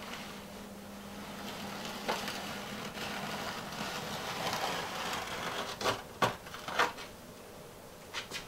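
Hand tiling work on a narrow backsplash: a tool or tile rubbing and scraping against the surface for a few seconds, then several sharp clicks and taps as small tiles and spacers are handled and set.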